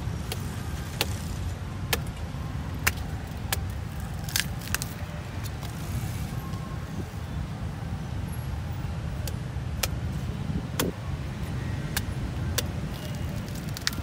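Heavy knife chopping into the tough husk of a toddy palm fruit held in the hand: a dozen or so sharp strikes at irregular intervals, over a steady low rumble of street traffic.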